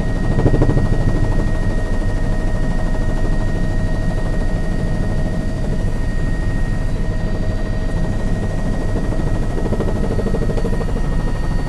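News helicopter running steadily in flight, heard from on board: a continuous low rotor rumble with a fast chop and a steady high turbine whine over it.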